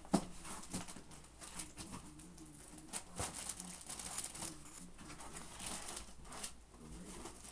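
Cardboard shipping box and packing material rustling and knocking as a desktop computer tower is worked out of its box, with a sharp knock just after the start and another about three seconds in.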